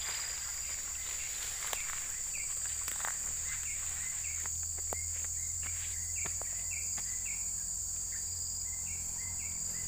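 Steady high-pitched drone of insects in tropical undergrowth, with a run of short high chirps repeating through the middle and scattered faint clicks.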